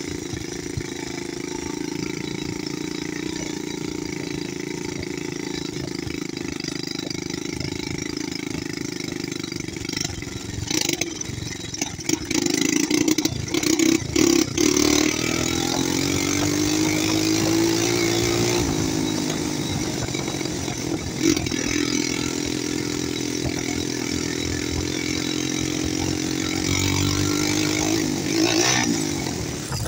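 ATV engine running while riding along a rough trail, the revs rising and falling, with knocks and rattles as it goes over bumps. The loudest stretch comes a little before halfway, and the revs climb again near the end.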